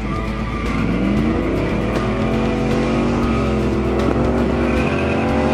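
Pickup truck's 8.1L Vortec big-block V8 accelerating hard as the truck comes closer, its engine note climbing in the first second and then holding high.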